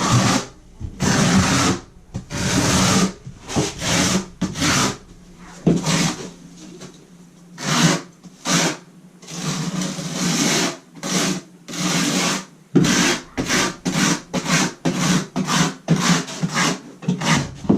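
Square-notch steel trowel scraping thinset mortar across a plywood subfloor in repeated strokes, pressing in a scratch coat. The strokes come quicker in the second half.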